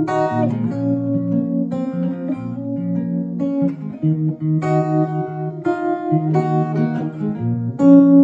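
Acoustic guitar played as the instrumental introduction to a song, with ringing chords that change about every second.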